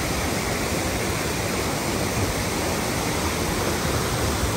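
Water cascading down a rock waterfall and splashing into a shallow pool: a steady, even rush of water.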